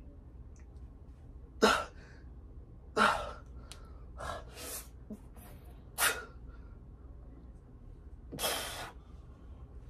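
A weightlifter's sharp, forceful breaths, pushed out hard in time with heavy dumbbell curl reps. There are about six of them, a second or so apart, and the last one, near the end, is longer.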